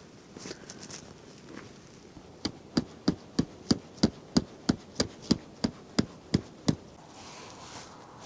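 A tent peg being driven into stony ground, struck with a hand-held block in place of a hammer: a steady run of about fourteen sharp knocks, roughly three a second.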